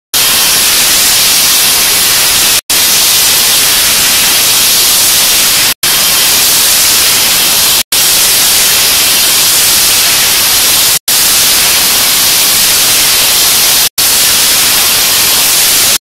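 Loud, steady static-like hiss, even across all pitches, cut by five brief silences two to three seconds apart.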